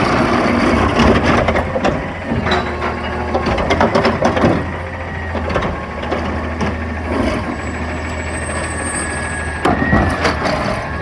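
Recycling truck's cart tipper lifting and emptying a recycling cart: recyclables clatter into the hopper with knocks and clanks from the lifter, over the truck's engine running. The clatter is thickest in the first half, and another clank comes near the end as the cart is set back down.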